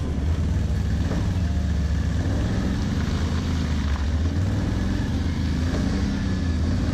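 ATV (quad bike) engine running steadily at riding speed, heard from on board as it travels a bumpy dirt track, with a heavy low rumble.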